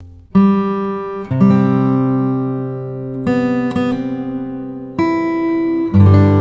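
Background music: acoustic guitar picking slow notes and chords, a new one struck every second or two and left to ring.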